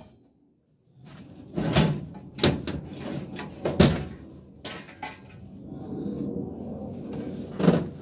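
Knocks and thumps of a heavy tumble dryer being handled and loaded into the back of a van, about five separate bumps, after a second of near silence.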